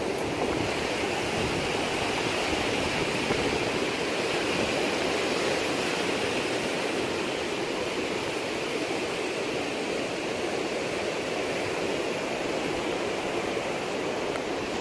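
Ocean surf washing onto a sandy beach, a steady even rush of water with no distinct breaks.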